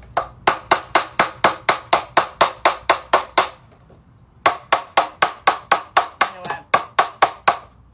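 A mallet rapidly pounding PVC fittings of a hydroponic rack into place, about four or five blows a second, each with a short hollow ring from the plastic pipe. Two runs of blows with a brief pause between them.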